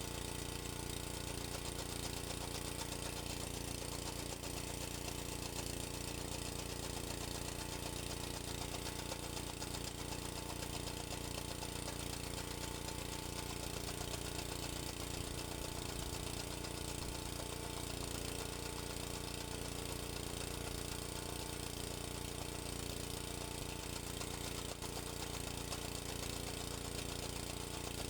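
A small engine running steadily at an even speed, with no change in pitch or loudness.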